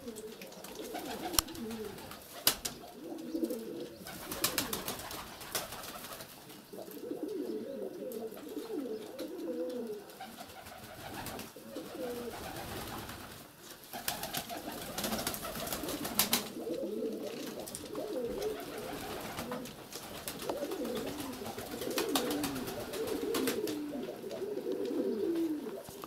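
Domestic pigeons cooing almost without pause, several low, wavering coos overlapping: the courtship cooing of a male turning in front of the hens. A few sharp clicks and taps are scattered through it.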